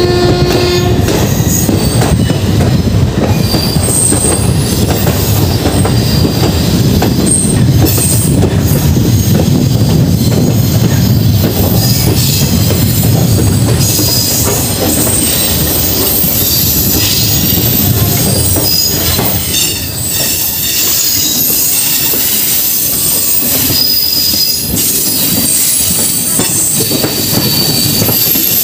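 Indian Railways express train's sleeper coach running at speed: a loud steady rumble of the wheels on the track with a constant rattle and clatter, and thin high squeals from the wheels now and then.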